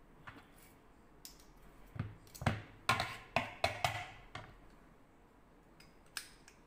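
Kitchen handling sounds: a quick run of sharp taps and clicks about two seconds in, lasting around two seconds, and two more near the end, as garlic cloves and utensils are handled on the counter.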